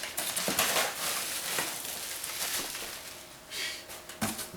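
Packing peanuts rustling and shifting as hands dig through a shipping box, quieting after about three seconds, with a short knock near the end.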